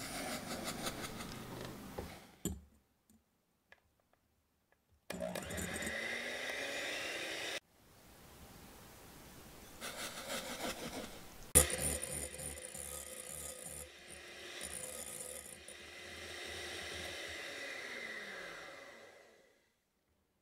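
Electric hand mixer whipping egg whites and sugar into meringue in a glass bowl, the motor whirring and the wire beaters rubbing and scraping against the glass, in several stretches broken by abrupt cuts. A single sharp knock comes about halfway through, and near the end the motor winds down and stops.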